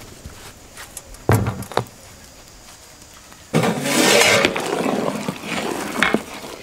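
A heavy metal soup pot set down with a low knock about a second in. A few seconds later, loud noisy metal scraping starts suddenly as the aluminium lid is slid off the steaming pot.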